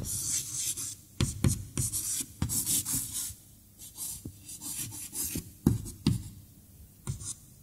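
Chalk writing on a blackboard: a run of short scratching strokes and sharp taps as letters are drawn, pausing briefly now and then.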